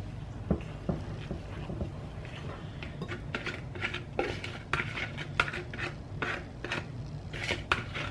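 Light clinks and taps against a glass mixing bowl as wet batter ingredients are poured in from a plastic container, with the whisk resting in the bowl. A couple of isolated taps come first, then the clinks come thick and fast from about three seconds in.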